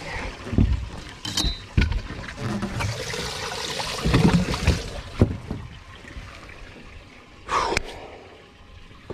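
A lake trout being handled and put into a boat's live well: several knocks against the boat and a stretch of water splashing and sloshing about three to five seconds in.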